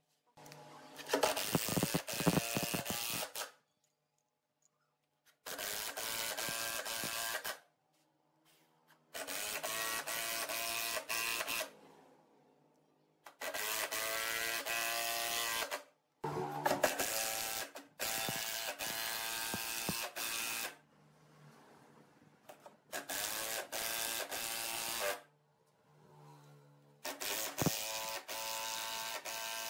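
Cordless impact driver driving screws into hardwood, in seven bursts of two to four seconds each: a motor whine over a rapid hammering clatter, with pauses between screws.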